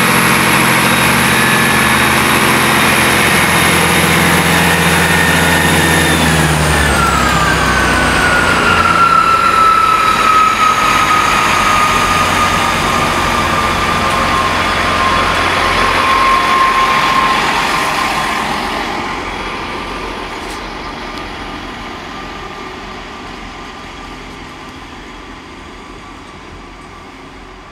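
Class 166 diesel multiple unit's underfloor diesel engines running as the train passes close and draws away, with a high whine whose pitch drops as it goes past. The sound stays loud at first, then fades steadily over the last ten seconds as the train recedes.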